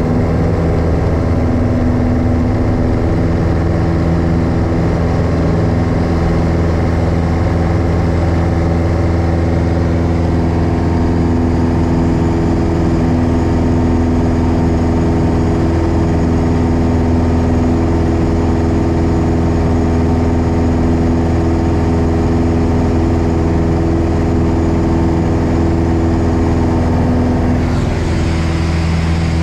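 Single-engine propeller aircraft's piston engine running steadily at high power through the takeoff and climb-out, heard inside the cockpit. The engine note shifts slightly and eases a little near the end.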